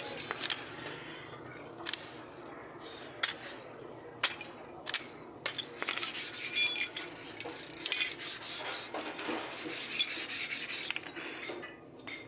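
Sharp metal clinks, about one a second, as metal casting patterns and a molding flask are handled. About six seconds in, these give way to several seconds of denser scraping and rubbing of metal on metal, with faint ringing.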